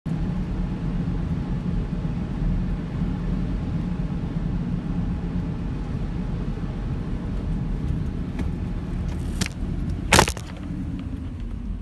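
Steady low rumble of a car driving, with a sharp click about ten seconds in.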